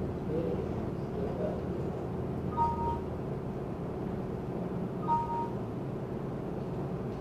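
Two short two-note Windows alert chimes from a laptop, about two and a half seconds apart, each marking a PowerPoint error dialog popping up, over a steady background hum.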